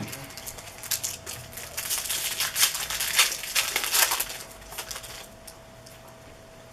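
Trading card pack wrapper crinkling and crackling as a pack is torn open and the cards are worked out. The crackling is dense for about five seconds, loudest around the middle, then dies away.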